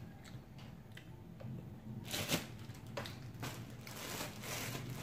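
Plastic bread bag crinkling and rustling as it is handled, starting about two seconds in, with a sharp crackle soon after; before that only a few faint clicks.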